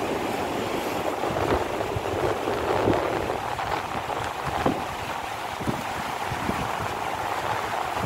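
Steady rushing of a large waterfall and its rocky river, with wind buffeting the microphone. A few short low thumps come through.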